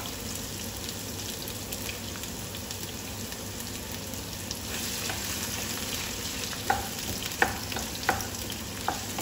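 Sliced onions sizzling in hot oil in a pan as they are sautéed, a steady hiss, with four or five short knocks from stirring against the pan in the second half.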